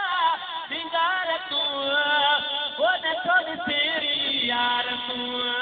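A man singing a melodic recitation into a microphone, his voice gliding and wavering, then holding one long note through the second half.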